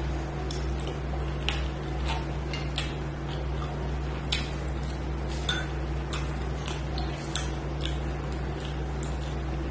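Fingers mixing rice and cabbage curry on a stainless steel plate, with irregular light clicks and ticks of fingers and nails against the steel, a few a second. A steady low hum runs underneath.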